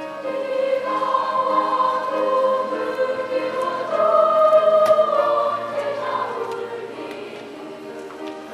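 Girls' middle-school choir singing in long held notes, swelling to its loudest about four seconds in and then dying away toward the end.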